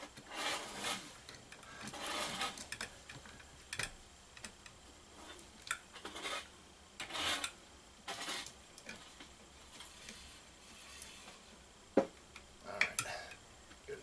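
Handling noises from the ceiling fan's metal center housing being worked on by hand: intermittent scraping and rubbing with light metallic clinks, and a few sharp clicks, the loudest near the end.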